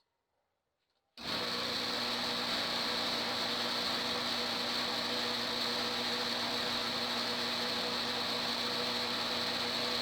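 Homemade lathe running steadily with an electric motor hum and a high whine, starting abruptly about a second in after near silence.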